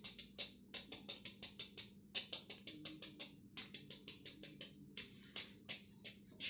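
A faint, quick run of light, dry percussive taps, several a second and slightly uneven, like a wood-block footsteps effect for a cartoon character walking away.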